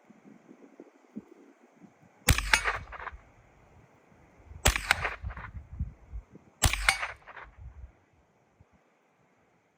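Three gunshots about two seconds apart, each followed by a short echo.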